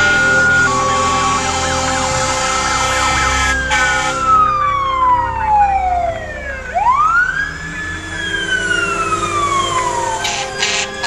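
Fire truck sirens passing: an electronic siren warbling at first, then a mechanical siren winding down over about three seconds, spinning quickly back up and slowly coasting down again. Truck engines run underneath.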